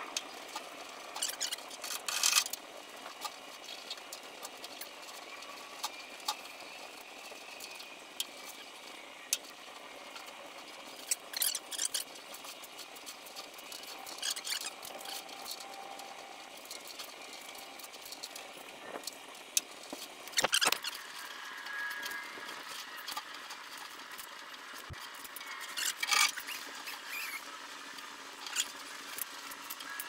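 Rubber front hood seal squeaking and rubbing as it is worked through the WD-40-lubricated channel around a 1961 VW Beetle's hood opening, in short irregular bursts with scattered clicks.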